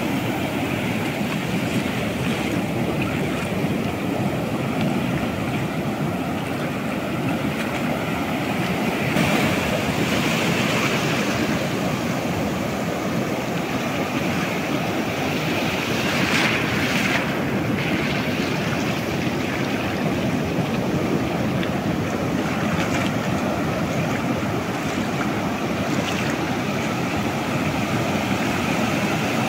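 Ocean surf breaking and washing in a steady rush of whitewater, with wind on the microphone.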